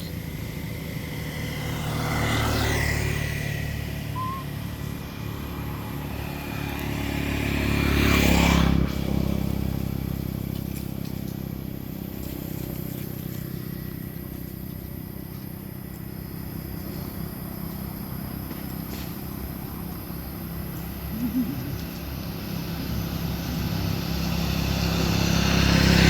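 Road traffic: motor vehicles passing by, one about two and a half seconds in and a louder one about eight seconds in, with another approaching near the end, over a steady low engine rumble.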